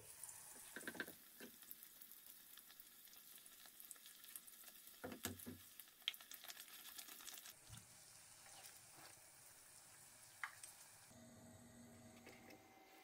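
A thin disc of yeast dough frying in hot vegetable oil in a deep pot: a faint steady sizzle with fine crackling, and a few light clicks as metal tongs turn and lift it.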